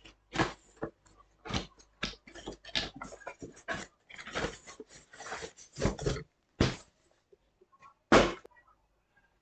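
Cardboard packaging and its paper and plastic wrapping being handled as a headset is unboxed: a string of short, irregular rustles, crinkles and scrapes, with one louder rustle near the end.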